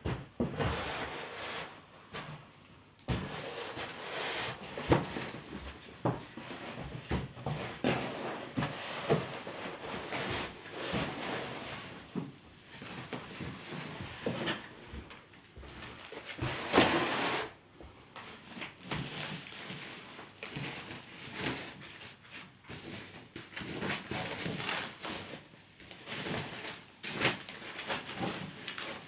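Packaging of a flat-screen TV being handled: irregular rustles, scrapes and knocks, with one longer, louder scrape about two-thirds of the way through.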